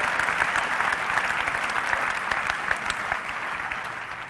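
Large audience applauding, a dense steady clapping that dies down over the last second or so.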